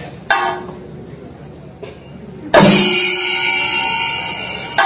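Thayambaka percussion: chenda drums struck with sticks, with ilathalam hand cymbals. A single sharp stroke comes just after the start, then about halfway through a sudden loud crash of drum and cymbals rings on, slowly fading, for about two seconds.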